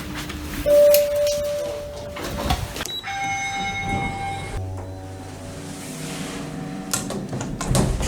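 Elevator sounds: a held single-tone beep about a second in, then a ringing chime at about three seconds. A low steady hum of the car and doors follows, with a few clicks near the end.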